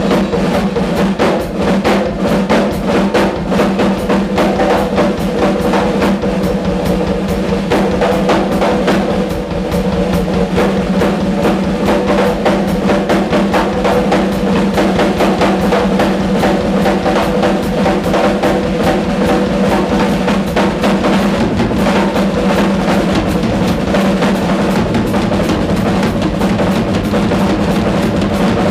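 Rock drum solo on a ddrum acoustic drum kit: a continuous fast run of strokes across snare, toms, bass drums and cymbals, with the drums ringing on steadily underneath.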